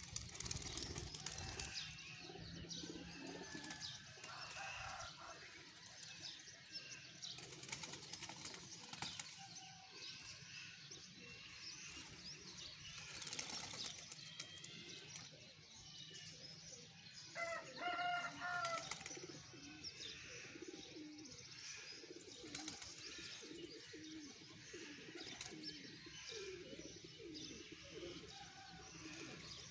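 Domestic pigeons cooing around a rooftop loft, with bursts of wing-flapping as birds take off and circle. A brief, louder call stands out about two-thirds of the way through.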